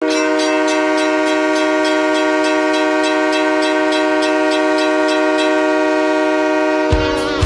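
Hockey arena goal horn, a train-style air horn, blowing one long steady blast for about seven seconds, then giving way near the end to the rock goal song.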